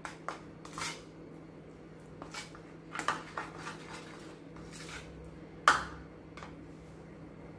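A spoon stirring a thick spice-and-yogurt paste in a bowl: scattered scrapes and light taps of the spoon against the bowl, with one sharper knock a little past the middle.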